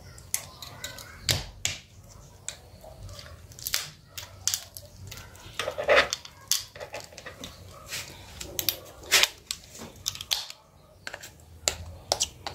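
Plastic clips on an Asus Z008D smartphone's rear frame clicking and snapping as a metal pry tool works them loose, with the tool scraping and tapping on the plastic. Irregular sharp clicks throughout, loudest about halfway through.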